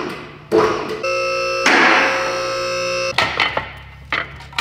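A synthesized electronic tone, a steady chord held for about two seconds starting about a second in, with a burst of hiss over part of it; a few light knocks follow near the end.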